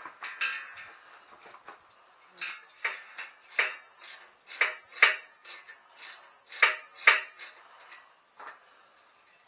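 Small metal tools and bicycle parts clinking and tapping against each other: a quick clatter at the start, then a run of sharp metallic clicks about two a second, ending with one more near the end.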